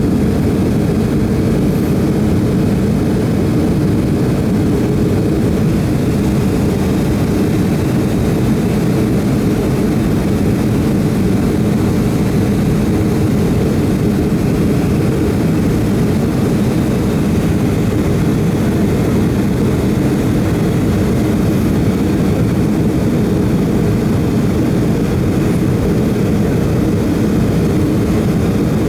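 Steady cabin noise inside a Boeing 757 in flight: an even, deep rumble of engines and rushing air that holds unchanged throughout.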